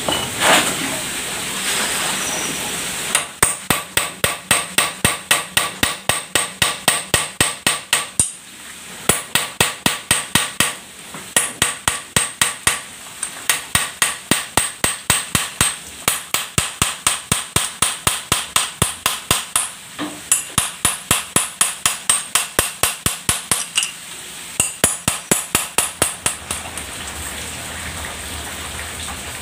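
Hand hammer beating on the steel pulley hub and shaft of a soybean grinder, metal on metal, knocking loose a stuck part so it can be unscrewed. The blows come in long runs of about three a second, broken by short pauses, starting a few seconds in and stopping shortly before the end.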